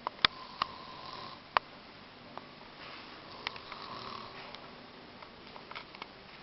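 A sleeping man snoring: two drawn-out, noisy snoring breaths, one about a second in and a longer one about three seconds in. Several sharp clicks are heard too, the loudest near the start.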